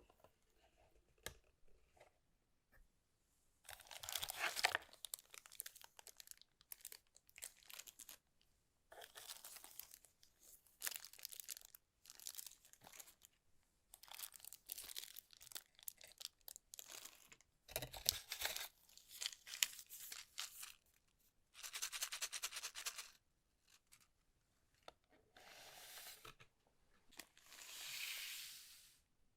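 Packaging being torn open and crinkled, in repeated bursts of tearing and rustling a second or two long with short pauses between.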